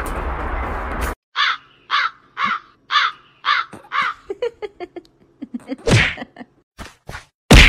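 Small shih tzu-type dog giving a run of about seven short barks, evenly spaced about two a second. Before that, for about a second, a steady hiss of water spraying from a garden-hose nozzle.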